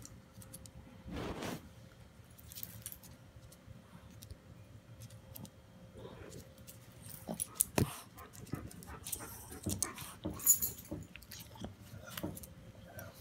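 Yorkshire terrier moving about on a wooden floor close to the microphone: scattered light clicks and scuffs, with a short rushing noise about a second in and a few sharper clicks near the end.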